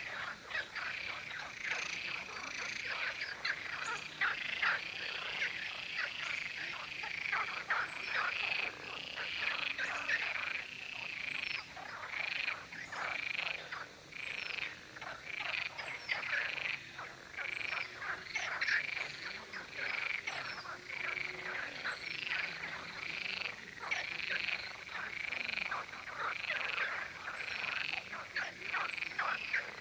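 Chorus of male frogs calling: many short croaks overlapping and repeating without a break.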